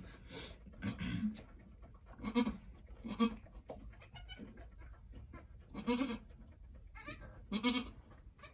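Angora goat doe making short, low calls to her newborn kid, about six of them spaced a second or more apart.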